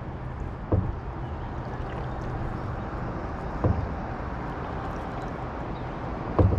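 Kayak being paddled: a steady rushing of water and air with three dull knocks, about one every three seconds, in time with the paddle strokes.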